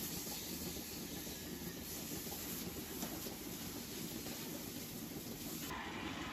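Water hose spraying onto the steel pit and floor of a milking parlour: a steady hiss. Near the end it cuts suddenly to a different steady machine noise.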